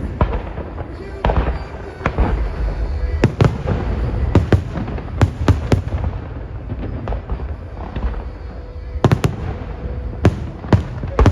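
Aerial fireworks bursting: many sharp bangs, often in quick pairs and clusters, over a continuous low rumble of shells going off.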